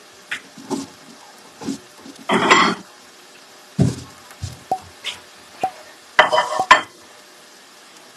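Cooking utensils knocking and clattering against pans and dishes on a stovetop: a string of sharp clinks, with two longer clattering bursts, one about two and a half seconds in and one near the end.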